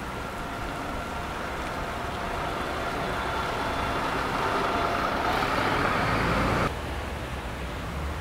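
Double-decker bus driving past on a wet road, its engine hum and tyre hiss growing louder as it passes, then cut off suddenly about two-thirds of the way in, leaving quieter street traffic.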